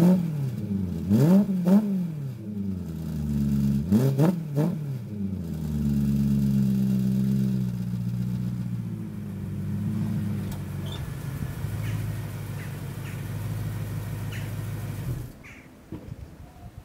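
BMW E93 M3's 4.0-litre V8 through a dual bypass exhaust, blipped twice in quick succession about a second in and twice more about four seconds in. It then eases down from a held rev to a steady idle. The engine switches off about a second and a half before the end.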